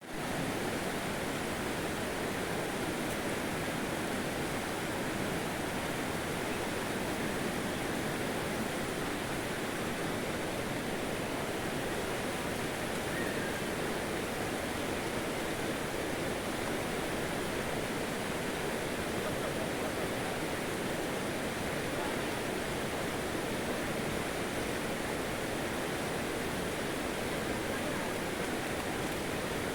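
Water rushing steadily, an even unbroken noise.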